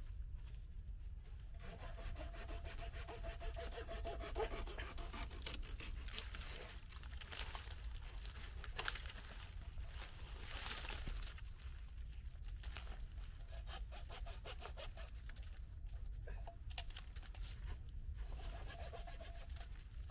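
Irregular scraping and rustling over a steady low rumble, starting about a second and a half in, with a faint thin tone heard twice.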